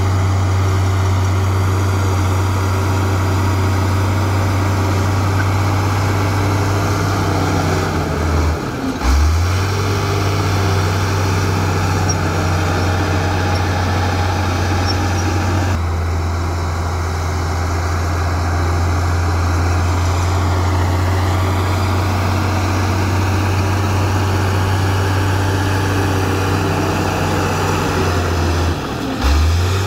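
Komatsu D53A crawler bulldozer's diesel engine running steadily with a strong low drone as it pushes soil with its blade. The engine note briefly dips and picks up again twice, about eight seconds in and near the end.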